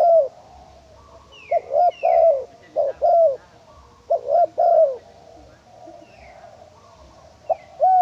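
Female spotted dove cooing: phrases of a few short rising-and-falling notes, repeated every second or two, with a pause of a couple of seconds before a new phrase starts near the end. Faint high, falling chirps of another small bird sound in between.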